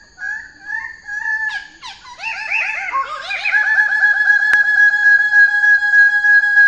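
A bird calling: short chirps at first, then from about two seconds in a long, loud trilling call that wavers about five times a second. A single sharp click comes about two-thirds of the way through.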